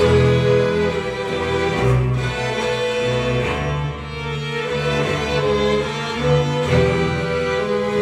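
String ensemble of violins, cellos and double bass playing sustained bowed chords live, a new chord entering loudly at the start after a brief break, with the harmony changing every two seconds or so.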